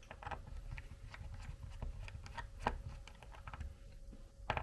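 Small screwdriver turning the tiny screws of an RC4WD mini beadlock wheel: scattered light clicks and ticks at irregular intervals, a couple of sharper ones near the end.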